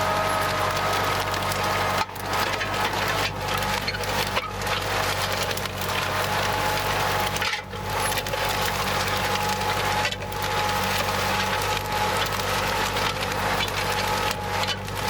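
A tractor engine running steadily, under a continuous crackling, rustling noise that dips briefly a few times.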